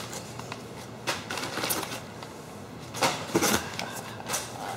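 Crumpled brown packing paper rustling and crinkling as it is pulled out of a cardboard box, in several short bursts.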